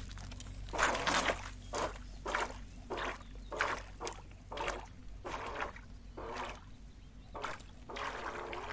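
A small boat being rowed out across a lake, with rhythmic water splashes about every half second.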